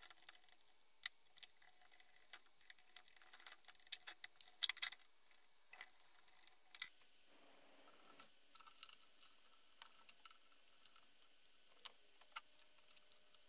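Faint, scattered clicks and small knocks of a hand screwdriver and small parts being worked into a chainsaw's plastic housing, with a quick cluster of clicks about four to five seconds in.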